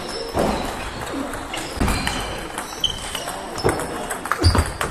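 Table tennis balls clicking off tables and bats in a large hall: a few sharp knocks spread a second or so apart, over low background hall noise.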